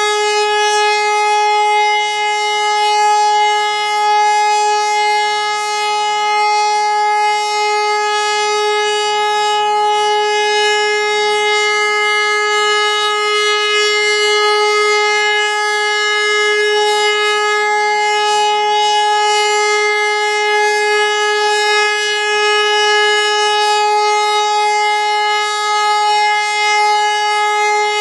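HLS573 high-performance siren sounding a loud, steady continuous tone with no rise or fall in pitch: the Austrian 'Warnung' (warning) signal, a three-minute steady tone, sounded as a siren test.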